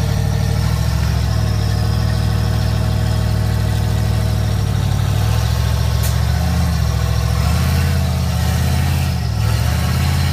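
Rock-crawling buggy's engine running at low revs under load as it climbs over boulders, steady at first, then rising and falling with short throttle changes from about halfway through.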